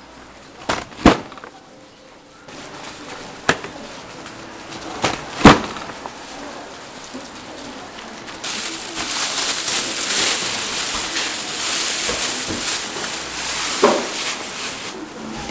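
Food-preparation noises at a gimbap stall: a handful of sharp knocks of boards and utensils, then a steady hiss that starts about eight seconds in and lasts almost to the end.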